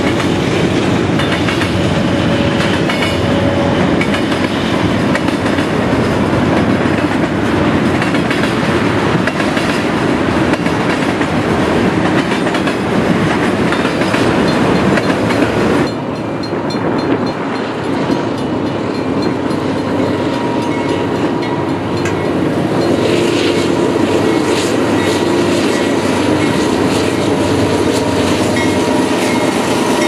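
Freight train of covered hopper cars rolling past, a steady rumble with the wheels clicking over the rail joints. About halfway through the sound suddenly drops to a quieter, steady rumble of an approaching train, which grows louder as its diesel locomotives arrive near the end.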